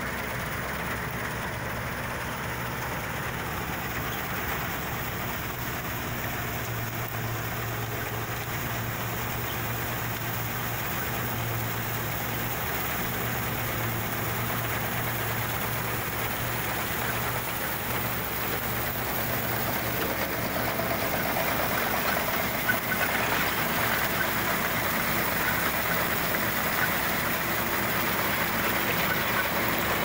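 New Holland 1530 combine harvester running steadily while cutting wheat: a constant engine drone with the rush of the reel, header and threshing machinery over it. It grows louder about two-thirds of the way in.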